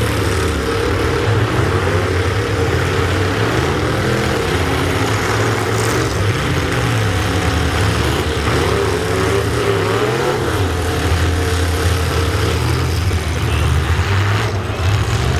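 Truck engine running loud, its pitch rising and falling as it revs up and eases off.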